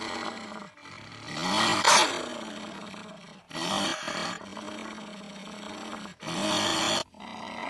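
Made-up creature sound effect: growls and roars spliced together, with three louder calls of wavering pitch about one and a half, three and a half and six seconds in. Each call stops abruptly, and softer growling runs in between.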